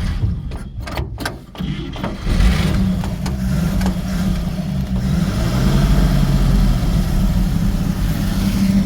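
1957 GMC 9300 truck's inline-six engine cranking briefly, catching about two seconds in, then idling steadily.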